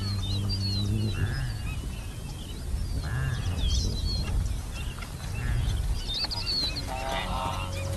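Small wading birds calling at a waterhole: many short, high chirps and twitters, with two lower calls about a second and three seconds in. A low steady drone sits under the start, and near the end a rapid run of lower calls and a steady tone come in as background music begins.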